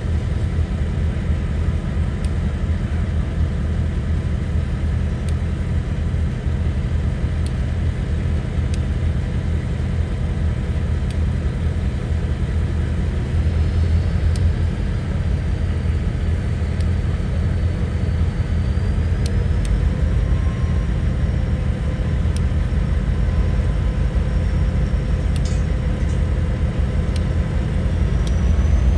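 A heavy diesel engine idling steadily: a deep, even rumble, with a faint high whine over it from about halfway through.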